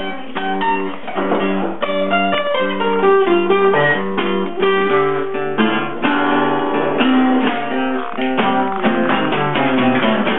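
Acoustic guitars playing a blues instrumental break, with a run of plucked and strummed notes and no singing.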